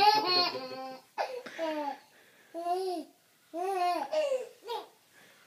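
Baby laughing hysterically in high-pitched squealing bursts, each rising and falling in pitch, about a second apart. A man's deep laugh joins in over the first second.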